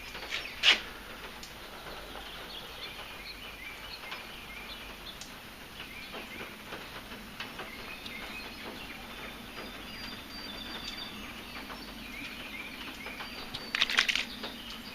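Small birds chirping and twittering over a faint steady background, with a sharp click about a second in and a short clatter of knocks near the end.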